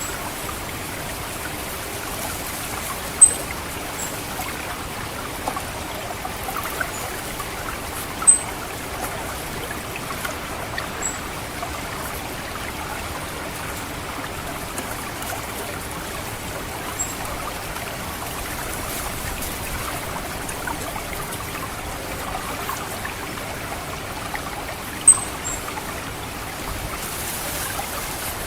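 Water trickling steadily through a rice paddy, with short, sharp, high 'cit' calls of an orange-headed thrush cutting in every few seconds: about eight in all, the loudest about 3, 8 and 25 seconds in, with a quick double near the end.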